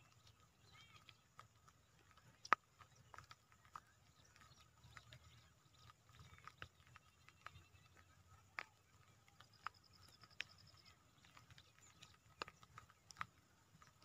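Faint outdoor ambience: scattered sharp clicks and a few faint chirps, with a short rapid high trill about ten seconds in.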